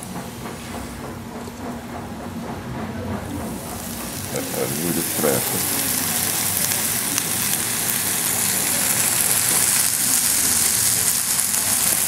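Pork slices sizzling on a Thai mookata dome grill over charcoal. The hissing sizzle builds a few seconds in and grows steadily louder as the meat heats on the hot pan.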